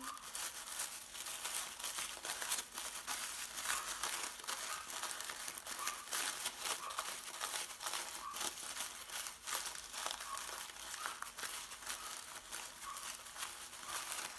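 Tissue paper crinkling and rustling as the thin folded layers of a paper flower are lifted and pulled apart by hand, a continuous run of small crackles.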